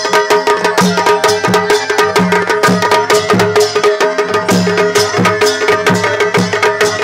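Pahadi folk music: fast drumming with a low beat repeating under a steady held drone and a melody line above it.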